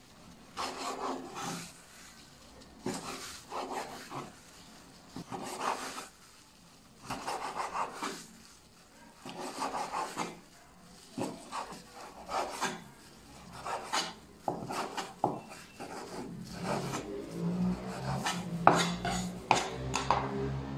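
Chinese cleaver slicing pork tenderloin into thin strips on a wooden chopping board: runs of quick knife strokes against the board, with short pauses between runs.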